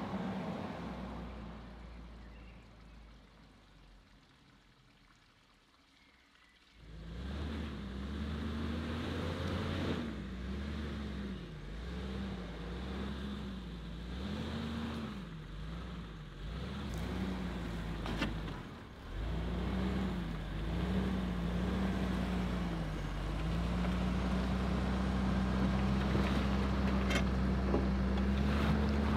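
A four-wheel-drive Mercedes W124 estate's engine: first the car drives past and fades away, then about seven seconds in it is heard close up labouring up a rutted dirt track, the revs rising and falling over and over before settling into a steady note near the end.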